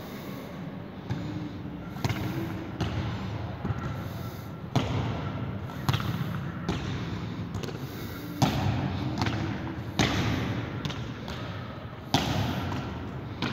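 Footballs being kicked and thudding, a sharp impact every one to two seconds, each echoing briefly off the concrete walls of an enclosed court.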